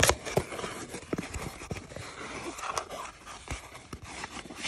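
A taped cardboard shipping box being handled and worked open: cardboard scraping and rustling, with a string of short clicks and knocks, the sharpest at the very start.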